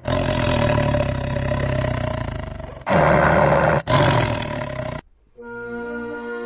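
A tiger roaring: one long, loud roar, then two shorter ones. About five seconds in, the roaring stops and orchestral music with held notes begins.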